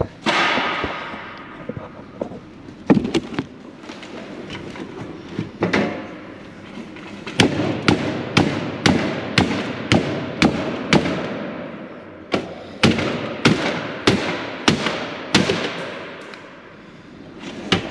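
Hammer blows smashing a computer hard drive inside a PC tower case to destroy its data. There are a few scattered sharp blows first, then two runs of steady strikes at about two a second, each with a short ring after it.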